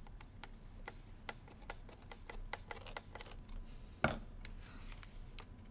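Scattered light plastic and metal clicks and taps from small steering-wheel parts being handled and fitted by hand, with one louder knock about four seconds in.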